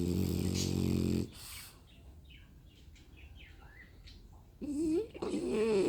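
French bulldog snoring: a long, low, buzzy snore for about the first second, then a short hissing breath. Near the end come two louder, wavering, higher-pitched sounds.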